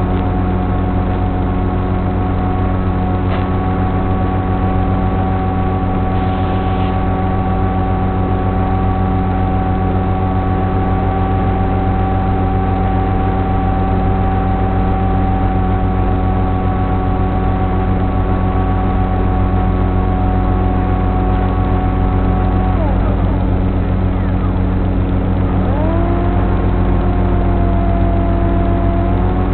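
Electric motor and propeller of an FPV flying wing, heard on board, running with a steady drone and whine under constant throttle. About three-quarters of the way in the whine falls away as the throttle is eased off, then comes back and rises in pitch near the end as the throttle is opened again.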